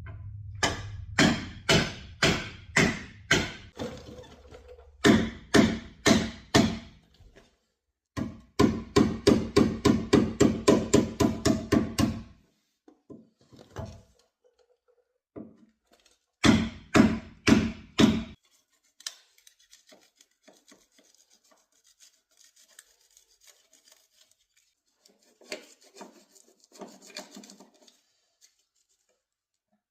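Hammer blows struck through a block of wood onto the truck's sheet-metal fender to bang a bent section back into shape, coming in four bursts of quick, evenly spaced strikes, the longest at about four a second. Near the end, faint scraping and rubbing.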